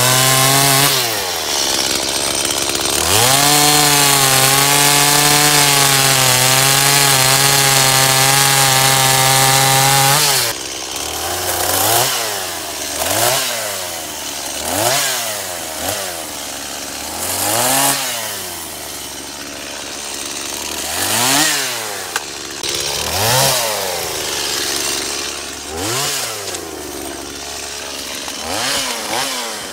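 Small Stihl two-stroke chainsaw held at full throttle while cutting wood, easing off briefly about a second in, then cutting steadily again for about seven seconds. From about ten seconds in, the throttle is blipped over and over, each rev rising and falling back to idle, roughly every two seconds.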